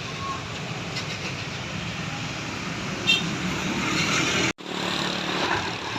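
Road traffic passing by the roadside, a steady rumble of engines and tyres. About three seconds in there is a short high beep, and a little later the sound cuts out for an instant.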